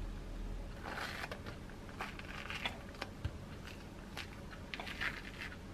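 A tangerine being peeled by hand: the rind tearing and crackling in several short bursts, with a few sharp clicks in between.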